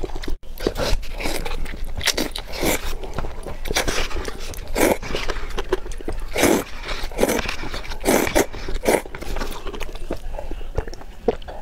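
Mouth noises of eating hot and sour glass noodles in a spicy broth: a string of short slurps and chewing sounds. Near the end come sips of broth from the rim of a paper cup.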